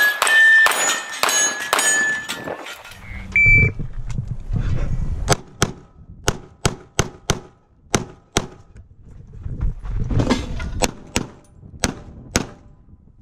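Semi-automatic pistol fired rapidly at a practical shooting stage, with metal targets ringing after the hits for the first two and a half seconds. After a short pause, a string of about a dozen sharp pistol shots follows, mostly in quick pairs, with a break of about two seconds in the middle.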